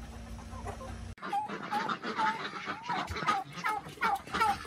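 Poultry calling: faint clucking from a flock of laying hens, then, from about a second in, a busier run of many short, wavering calls from penned turkeys.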